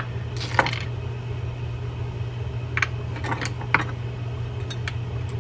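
Scattered light metallic clicks and clinks of small reel parts as drag washers are worked off a fishing reel's main gear with a pick and small pliers, over a steady low hum.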